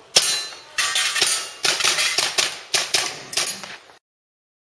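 Airsoft pistol fired in a quick string of about ten sharp pops, each with a short ringing tail, cutting off abruptly near the end.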